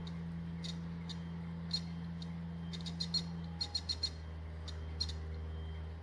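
A steady low hum with short, high-pitched chirps scattered through it, four in quick succession about halfway.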